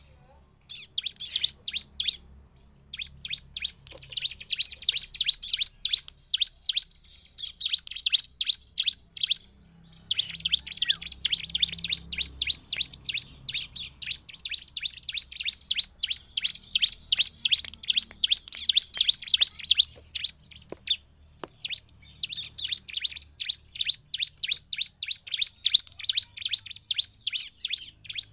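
Bar-winged prinia (ciblek) singing in long, fast runs of sharp, high chirps, broken by short pauses near the start, around 2 seconds, about 10 seconds in and about 21 seconds in.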